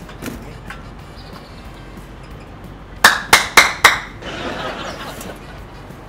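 Four sharp, loud knocks in quick succession about three seconds in, roughly three a second, each bright and brief.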